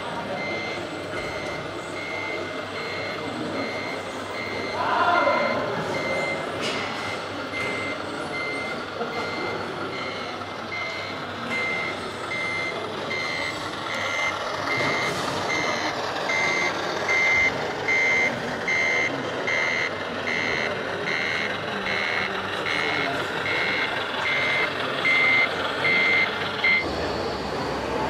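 Reversing warning beeper from a radio-controlled scale truck's sound module, beeping evenly at one pitch while the truck backs a container trailer. The beeping stops near the end. There is a brief louder sound about five seconds in.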